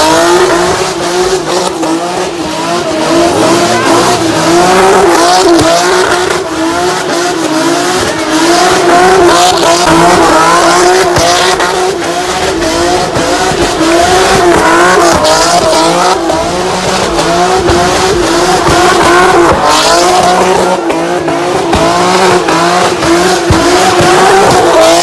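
A car doing a burnout: the engine held at high revs, its pitch wavering up and down steadily, while the spinning tyres squeal.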